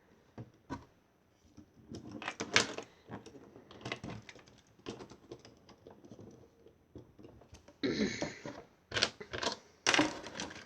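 Hard plastic Lego pieces clicking and knocking as the figures are handled and set down, in irregular clusters of sharp clicks, with a brief rustling scrape about eight seconds in.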